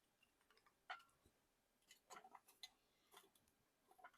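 Near silence with a few faint, short clicks, one about a second in and a small cluster near the middle, as small sticks are poked into a homemade tin-can rocket stove.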